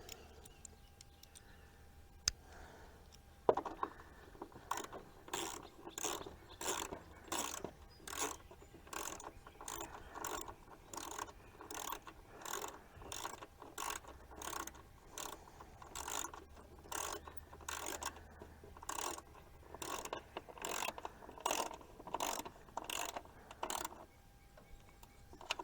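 Socket ratchet wrench with an extension being worked back and forth to run a bolt in, a short burst of ratchet clicks on each stroke at about two strokes a second. It starts after a single knock about three and a half seconds in and stops shortly before the end.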